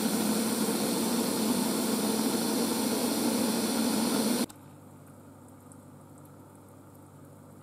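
Ninja Foodi pressure cooker hissing steadily as steam escapes from its lid while it comes up to pressure. The hiss cuts off suddenly about four and a half seconds in, leaving only faint background noise.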